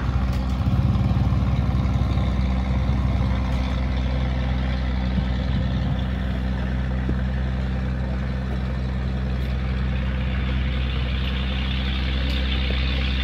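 An engine running steadily, a low, even hum that is a little louder in the first few seconds.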